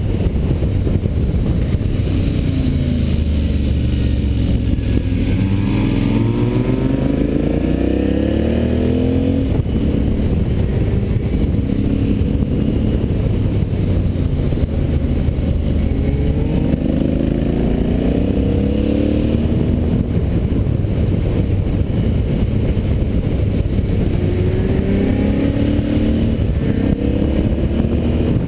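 Motorcycle engine running on the move, heard from a camera mounted on the bike. Its pitch climbs several times as the bike accelerates out of bends, over a steady low rumble.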